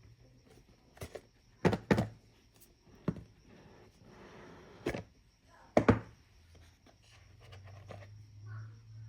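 Knocks and thunks of a product box and its contents being handled, about seven sharp hits, the loudest near two seconds and six seconds in, with a brief rustle of packaging just before the middle.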